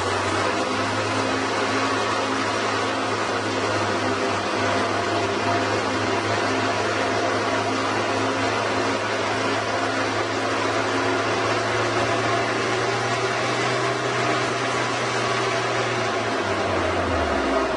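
Steady machine drone: a low hum with a few steady tones over a constant rushing noise, the lowest tone dropping slightly near the end.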